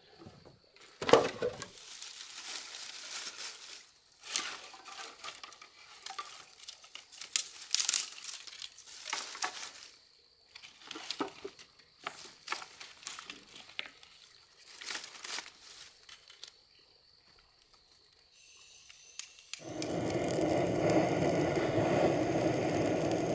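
Irregular bursts of crinkling and rustling, as of things being handled, over a faint steady high tone; from about twenty seconds in, a louder steady noise takes over.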